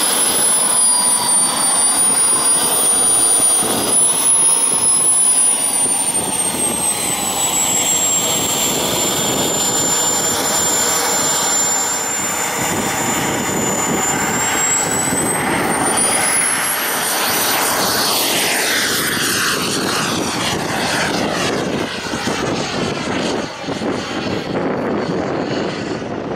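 Jet Munts Merlin 140 turbine of an RC Sukhoi Su-54 model jet running with a steady high-pitched whistle. The whistle sags a little, then climbs sharply about fifteen seconds in as the turbine spools up for takeoff. A broad rushing sound with a sweeping, shifting tone follows as the jet goes by and climbs away.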